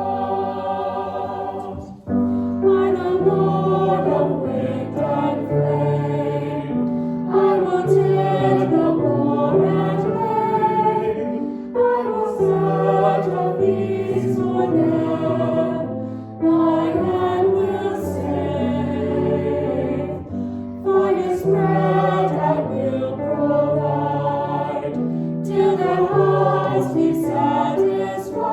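Choir singing a hymn in phrases of a few seconds each, with short breaths between them.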